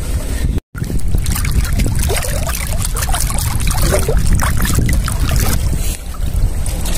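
Water splashing and sloshing around people wading in a shallow creek, over a heavy low rumble of wind on the microphone. The sound cuts out for an instant about half a second in.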